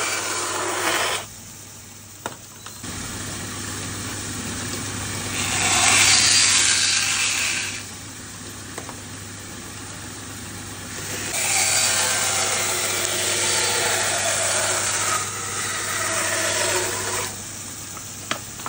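Band saw running with a steady motor hum, its blade cutting through animal horn in three passes: a short cut at the start, a louder one about six seconds in, and a long one from about eleven to seventeen seconds. A couple of sharp clicks fall between the cuts.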